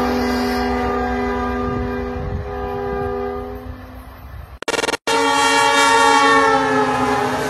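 Diesel locomotive horn sounding a long blast of several notes over the low rumble of a passing train. The blast fades away over the first few seconds. After a sudden break, another long horn blast comes from a locomotive passing close by, its pitch sagging slightly as it goes by.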